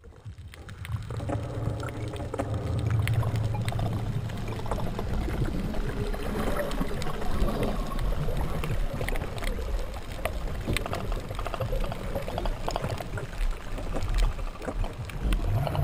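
Muffled, rushing water noise with many small clicks, as heard through an underwater camera. It fades in over the first second or two, then holds steady.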